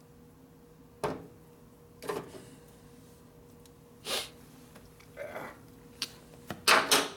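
Short, scattered handling noises: clicks, clunks and rustles of hand tools and wiring parts being moved, about seven in all, with the loudest pair close together near the end.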